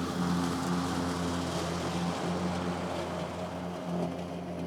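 MowRator S1 Pro 4WD battery lawn mower's electric motors running at a steady pitch, a constant hum under a rushing noise.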